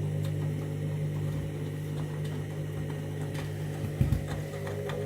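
Candy washing machine turning its drum during the main wash: the motor runs with a steady low hum, with two loud knocks about four seconds in.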